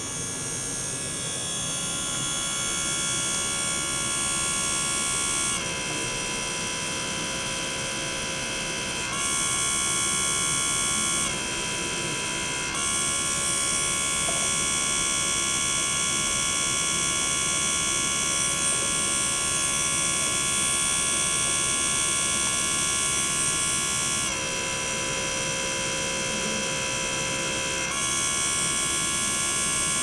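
Small electric gear pump running with a steady high-pitched motor whine as it circulates water through tubing. The pitch drops a little and comes back up several times, as the gear pump alternately moves water and air.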